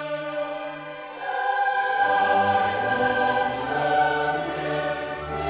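Background choral music: voices holding long, sustained chords, moving to a new chord about a second and a half in.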